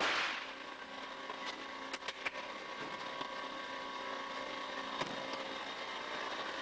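Vegetable increment cutter running with a steady mechanical hum from its motor and conveyor. A few sharp clicks and knocks come through, a cluster about two seconds in and another about five seconds in.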